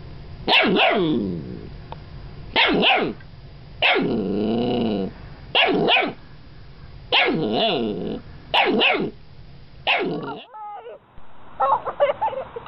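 Golden retriever puppy barking about seven times, each bark falling in pitch, one in the middle drawn out longer. Near the end, a few short, high yips.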